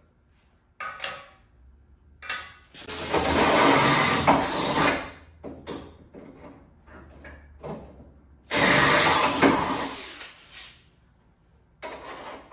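A drill boring a hole through the car's crash bar, in two bursts of about two to three seconds each, with scattered knocks and clicks between.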